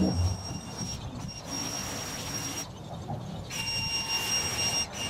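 Ryobi electric pressure washer running in spells, a steady high whine with spray hiss that cuts out and restarts three times as the spray-gun trigger is released and squeezed again.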